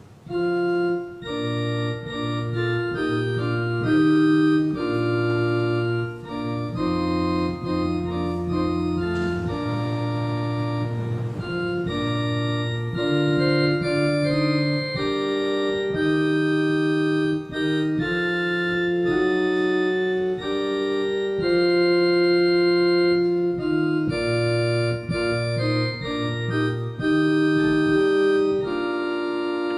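Organ playing a hymn in slow, held chords that change every second or two.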